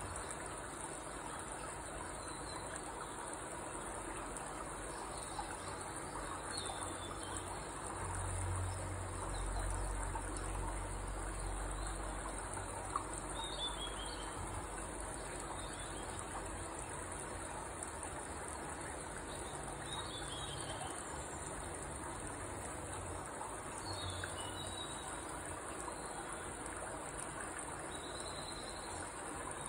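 Steady high trill of insects, with a few short bird chirps now and then and a low rumble for a few seconds about eight seconds in.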